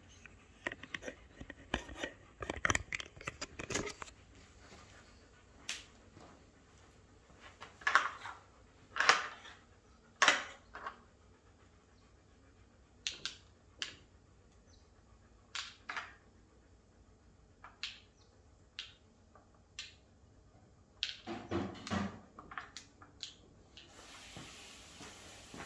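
Wooden pegs and covers of a wooden dog puzzle board knocking and clicking as they are lifted and set back in place to hide treats. Scattered single knocks, the loudest a few seconds apart near the middle and a quick cluster near the end.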